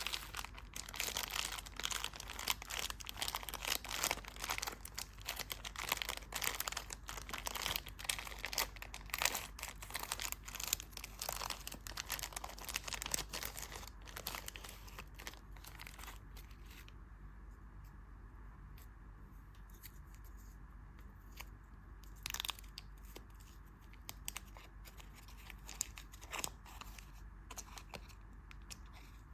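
Candy wrapper being crinkled and torn open, a dense crackling for about the first half, then quieter with only occasional crackles.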